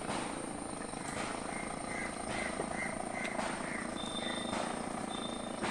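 A small engine running steadily with a fast flutter, and a string of short high chirps through the middle.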